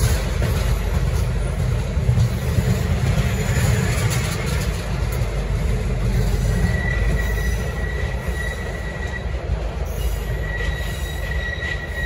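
V/Line passenger carriages rolling past with a steady low rumble. A thin, high wheel squeal starts about halfway through, breaks off, and returns near the end.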